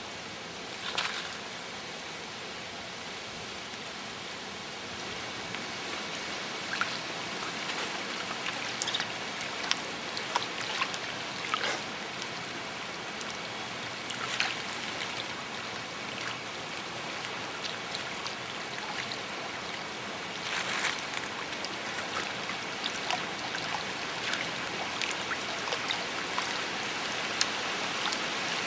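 Water trickling and running steadily, with scattered sharp drips and splashes that come more often in the second half.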